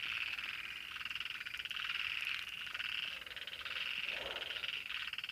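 Chorus of frogs calling at night after rain: a continuous, dense pulsing trill from many animals at once.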